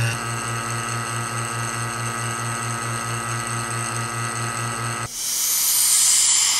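Electric vacuum pump running on a stainless vacuum chamber with a steady, pulsing hum while it draws air out of wood soaked in stabilising resin. About five seconds in the hum drops back and a loud rushing hiss takes over as the chamber's valve is opened and air is let back in.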